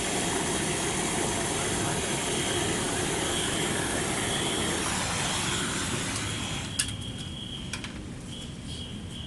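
Brazing torch flame running with a steady rushing hiss, which drops away about two-thirds of the way through, with a sharp click. A cricket chirps faintly behind it, more plainly at the end.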